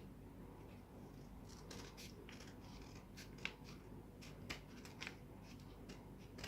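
Scissors snipping through a paper envelope: a run of short, irregular cuts, a few of them louder in the second half.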